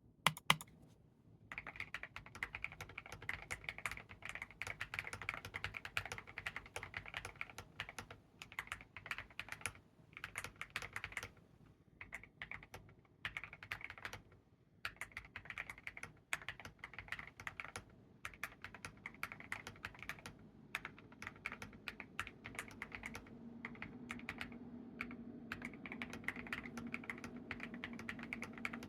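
Typing on a Keychron V5 Max mechanical keyboard with WS mix & match switches (nylon housing, LY stem, 62 g triple-stage springs), KAT MIZU Moonlight keycaps and a tape mod. Two louder single clacks come first, then a fast run of keystrokes with a few short pauses.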